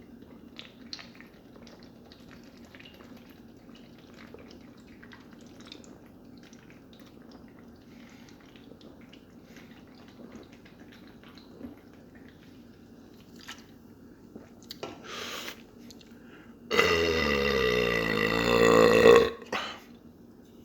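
A man's long, loud burp lasting about two and a half seconds near the end, its pitch dipping and then rising. Before it there are only faint small clicks.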